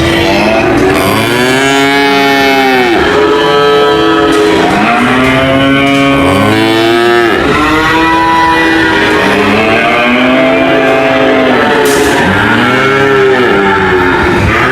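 Cattle mooing, one long call after another with several overlapping, each rising and then falling in pitch.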